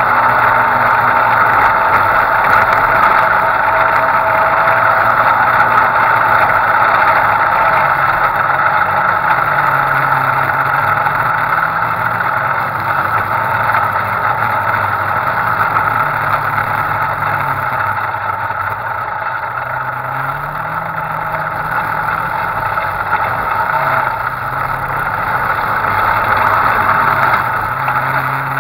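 Off-road vehicle's engine running as it drives across loose sand, its pitch rising and falling several times with the throttle, over a steady rush of wind and driving noise.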